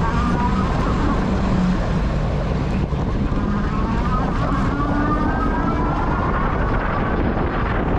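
Wind rushing over the microphone of a moving e-bike, with a motor whine that rises and falls.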